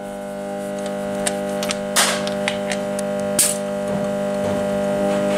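A steady hum that slowly grows louder, with a few sharp metallic clicks and clacks from the compression gauge and tools being handled on the engine's cylinder head.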